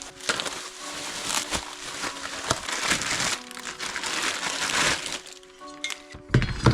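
Background music with held notes, laid over about five seconds of dense crinkling, scraping noise. A sharp, deep knock comes near the end.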